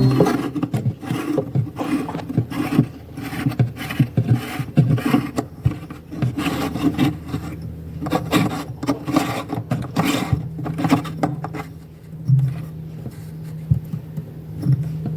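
Irregular rubbing and scraping handling noises, with a steady low hum coming in about halfway through.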